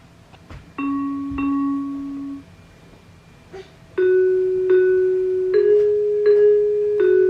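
Electronic keys on a toddler's musical toy pressed one at a time, sounding single sustained chime-like notes. Two lower notes come about a second in, then after a pause five higher notes follow in quick succession.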